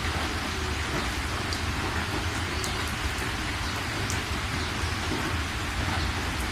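Steady rain falling, with scattered louder drops and drips ticking through it and a low rumble underneath.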